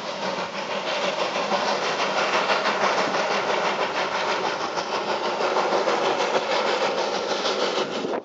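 Waldenburgerbahn steam locomotive No. 5 'Gedeon Thommen' (built 1902) approaching under steam: a loud, steady rush of rapid exhaust beats. Cars pass on the road beside the track.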